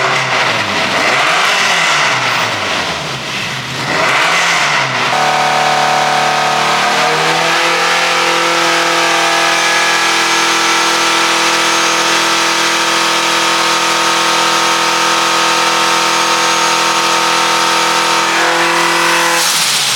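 Turbocharged K24-swapped Honda S2000 four-cylinder engine revved up and down twice, then held at a steady speed for about twelve seconds with a small step up in pitch partway through. It falls back and revs briefly near the end.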